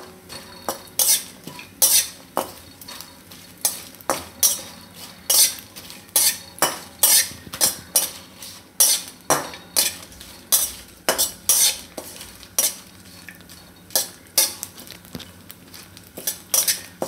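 Flat steel spatula scraping and stirring in a steel kadai, about two uneven strokes a second, over a faint sizzle of dried coconut slices and bay leaves roasting in a little oil.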